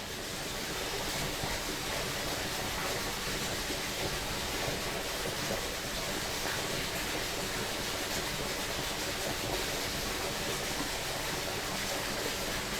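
A stream running steadily over rocks, an even rushing water sound with no breaks, recorded binaurally.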